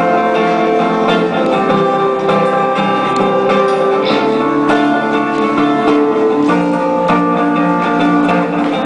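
Acoustic guitar strumming chords at a steady rhythm.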